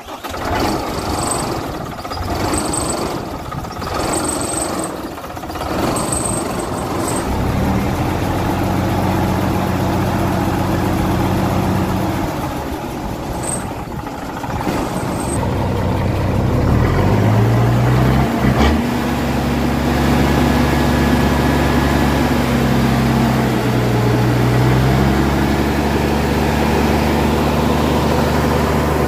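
Truck engine running. It is steady at first, revs up about halfway through and holds at a higher speed, dips briefly, then picks up again, as it works to pull free.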